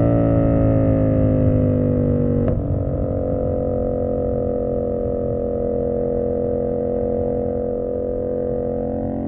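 Tuned CFMoto 450SS motorcycle engine coming off the throttle, its pitch falling for about two and a half seconds, then a click and the engine settles into a steady low-revving idle.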